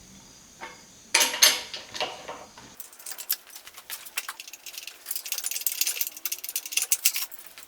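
Metal clanking and knocking, then a long run of rapid light metallic clicks and rattling from tools and parts being handled around the engine mounts.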